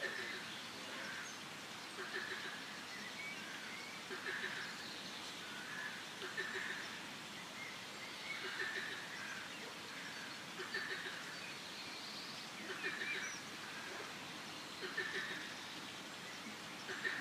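Forest ambience of frogs and birds calling: a short pulsed call repeats about every two seconds over a steady background of higher chirps.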